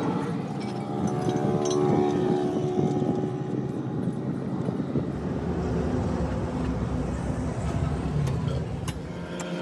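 A vehicle engine running steadily, a low rumble with a few steady tones above it.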